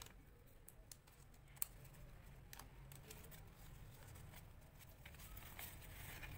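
Faint rustling and tapping of card stock being handled and folded on a tabletop, with one sharp click about one and a half seconds in, over a low background hum.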